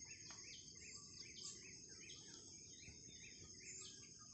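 Faint field-edge ambience: a steady high-pitched insect drone, with a run of short chirps repeating a few times a second.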